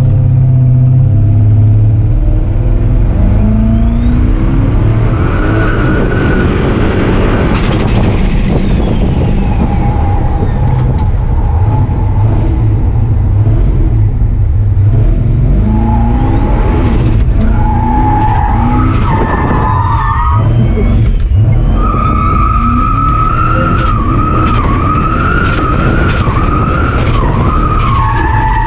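Turbocharged V8 engine of a Dodge pickup revving hard in repeated surges while drifting, with a high whistle rising and falling with the revs, and tyres squealing in wavering tones through the second half.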